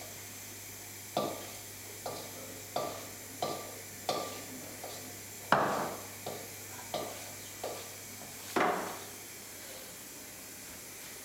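A spoon knocking against a stainless-steel mixing bowl while mixing, about ten sharp knocks each with a short metallic ring, irregularly spaced. The loudest knocks come near the middle and about two-thirds through, and they stop shortly before the end.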